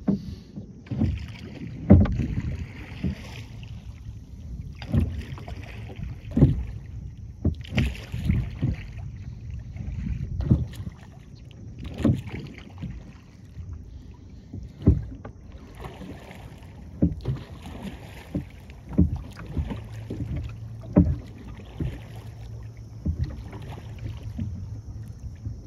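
Rowing a small fibreglass rowboat: the oars knock against the boat every second or two, and the blades splash and drip as they dip and pull through the water.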